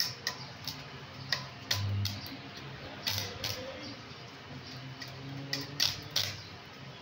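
Irregular light metallic clicks and taps as steel is handled at a welded angle-iron frame, with a few sharper knocks, over a steady low hum.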